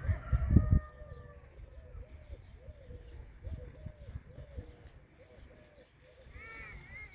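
Hens clucking softly, a low cluck repeating about twice a second. A low rumble in the first second, and a brief higher-pitched call near the end.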